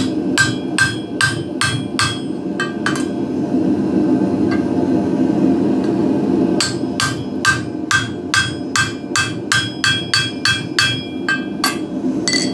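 Hammer striking a hand-held steel punch driven into the punched hole of red-hot steel to stretch the hole out over the anvil's hole, each blow a sharp metallic ring. A run of about eight blows, a pause of about three seconds, then a faster run of about fifteen blows at roughly three a second, over a steady low rumble.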